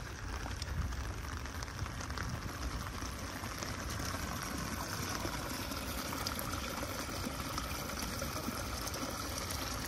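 Muddy rainwater runoff flowing in a small stream over gravel and splashing into a flooded pothole: a steady rushing of water, a little louder from about four seconds in.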